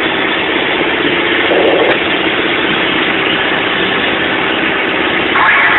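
Mack dump truck's diesel engine running steadily, heard from inside the cab along with road and cab noise; it grows a little louder near the end.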